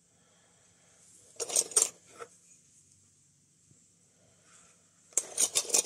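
Metal Geiger counter tubes clinking and rattling against each other as they are handled in a box, in two short bursts: about a second and a half in, and again near the end.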